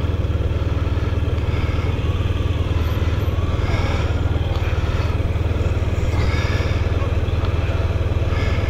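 Motorcycle engine idling steadily with a fast, even pulse.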